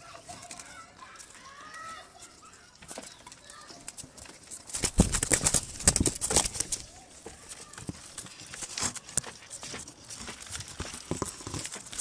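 A young dove trapped in a wooden cage trap, flapping its wings and knocking against the wooden slats. A run of loud flaps and clatter comes about five seconds in, with scattered flaps and knocks later.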